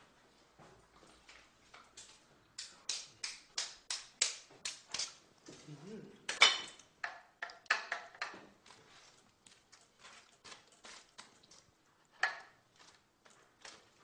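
A knife knocking and clinking against a plate or board as food is cut, in runs of quick strikes about three a second, with a louder clatter about six seconds in.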